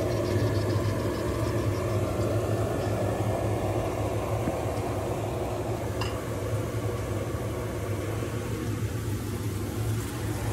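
A motor's steady low hum with an even rushing noise, unchanging throughout.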